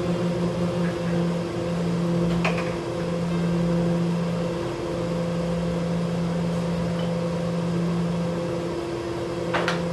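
Steady low electrical hum of a running kitchen appliance, with a light clink about two and a half seconds in and another near the end as items go into a dishwasher rack.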